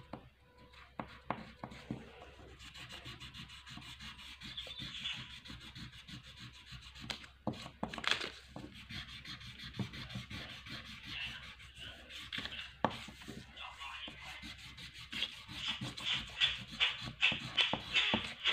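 Red crayon scratching back and forth across paper on a hard desk mat as an area is coloured in, a dry rasping rub made of many quick short strokes that get faster and louder near the end.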